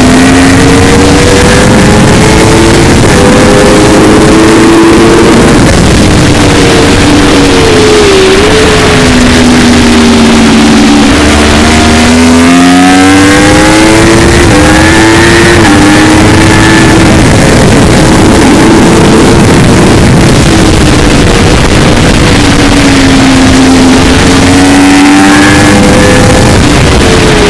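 A vehicle engine heard from a helmet-mounted camera, its pitch climbing and falling as it accelerates and lifts, with sharp drops about a third of the way in and again near the end. Heavy wind noise on the microphone comes with it, and the sound is recorded so loud that it distorts.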